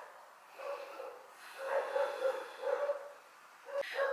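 A woman whimpering and sobbing in short, repeated catches of breath, each a brief held note at the same pitch, in the emotional aftermath of nearby explosions.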